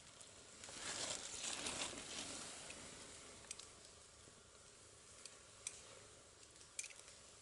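A short, soft rustle about a second in, then a few scattered faint sharp ticks.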